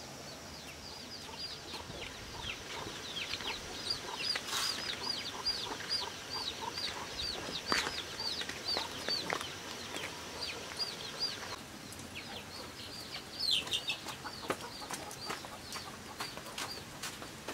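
Chicken calling: a long run of short, high, repeated cheeps, about three a second, broken by a brief pause midway, with a few sharp knocks among them.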